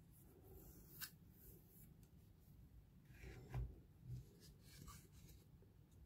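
Faint handling of a Zippo lighter and its peeled-off adhesive warning sticker: light rustling, a sharp click about a second in, and two soft knocks past the middle.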